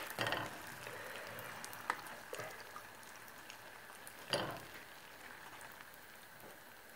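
Spring rolls deep-frying in a pan of hot oil, with a faint steady sizzle. A few short knocks and scrapes come from a utensil in the pan as the rolls are lifted out, the loudest about four seconds in.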